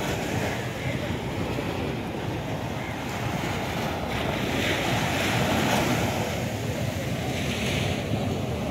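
Small sea waves breaking and washing up a sandy shore, with wind buffeting the microphone; the surf hiss swells about halfway through.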